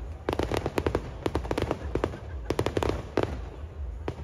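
Aerial fireworks shells bursting overhead in quick clusters of sharp bangs and crackles, one cluster after another, over a steady low rumble.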